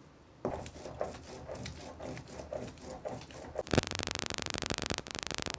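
Stone roller grinding dried chillies on a flat grinding stone: irregular scraping strokes, then a sudden loud, steady rasping noise begins a little before four seconds in.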